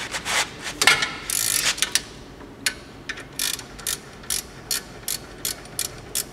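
Ratchet wrench backing out a 17 mm brake caliper bolt. A flurry of clicks and a short rattle come first. Then a steady run of single clicks follows, about two or three a second.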